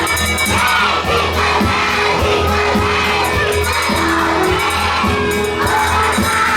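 Music playing with a crowd of children's voices over it, singing and shouting along.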